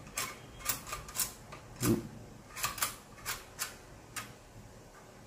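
Handling noise from an all-steel AK-pattern airsoft rifle: a string of about ten short clicks and taps of metal parts over the first four seconds, one with a duller thump near the middle, then near quiet.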